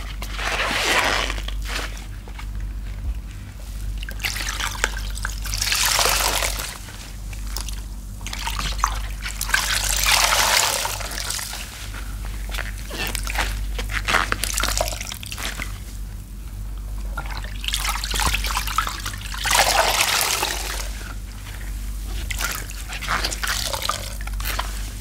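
Water-soaked, soapy sponges squeezed and wrung by rubber-gloved hands in a tub of sudsy water. Each squeeze gives a squelch with water streaming and trickling back into the tub, repeated every few seconds over a steady low hum.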